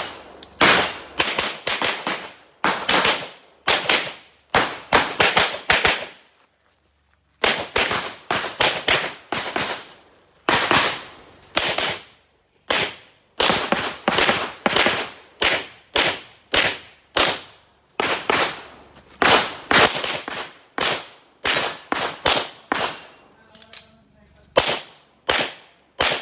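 Pistol shots fired in fast strings of sharp cracks, often two or three close together, with short gaps between strings and one longer gap of over a second about six seconds in.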